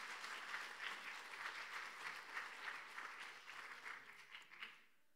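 Audience applauding, the clapping thinning out and stopping just before the end.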